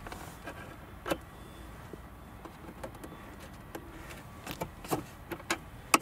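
Scattered metal and plastic clicks and ticks as the steel coil spring is worked off the armrest's hinge rod. The clicks are irregular and come closer together in the last two seconds.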